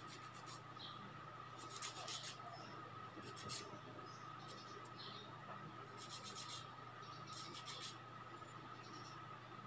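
Faint short scrapes of a thin metal nail-cleaning tool working on fingernails, in irregular strokes a second or two apart.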